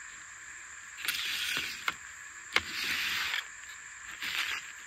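Remis pleated RV blind sliding along the channels of its plastic frame: three sliding strokes with two sharp clicks between them, as the re-strung blind is pulled back and forth and tracks properly.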